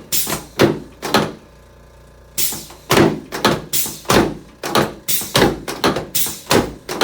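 Repeated sharp thuds of a chiropractic treatment table: three about half a second apart at the start, a short pause, then a steady run of about two a second from a little over two seconds in.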